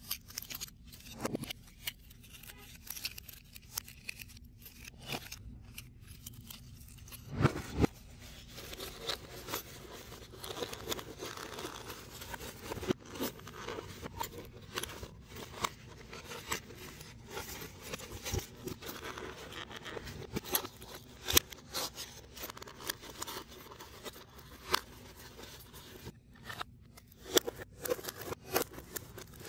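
Printed foam-board 3D puzzle pieces being handled, pressed and slotted together: a run of small clicks, scrapes and rustles, with two louder knocks about seven and a half seconds in.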